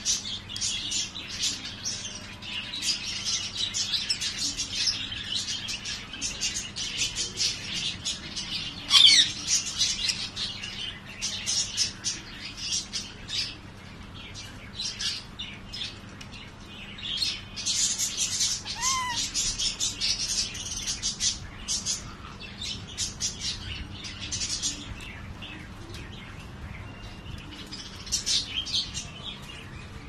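Budgerigars chattering and chirping in fast bouts, with one louder sweeping call about nine seconds in.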